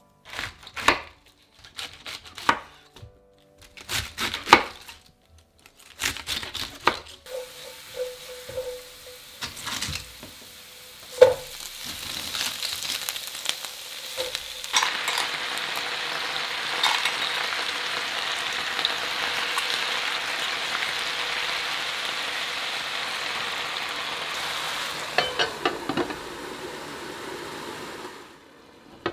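Light taps and clicks at first, then cut cabbage and garlic sizzling steadily in hot oil in a nonstick frying pan. Near the end a few clatters come as a glass lid goes on, and the sizzle drops away under it.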